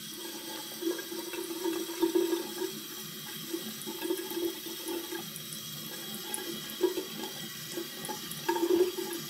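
Tap water running into a bathroom sink, with uneven splashing as the face is rinsed between shaving passes.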